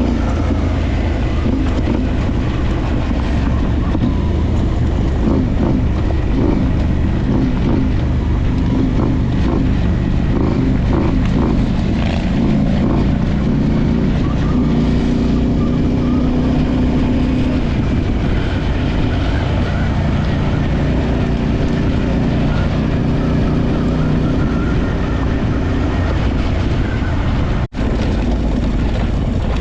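Adventure motorcycle engine running steadily while riding, its pitch rising and falling with the throttle. The sound cuts out for an instant near the end.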